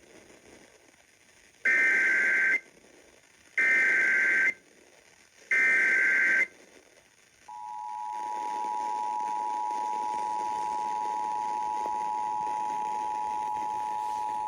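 Emergency Alert System tones aired on radio: three one-second bursts of SAME header data tones about a second apart, then the steady two-tone EAS attention signal (853 and 960 Hz) begins about halfway through and holds. Together they herald a National Weather Service flash flood warning being relayed.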